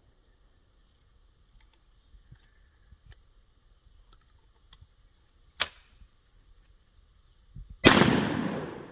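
A G-Force Arms single-shot 12-gauge shotgun fires once near the end: one loud blast that dies away over about a second. A sharp click comes a couple of seconds before it, and faint small clicks come earlier.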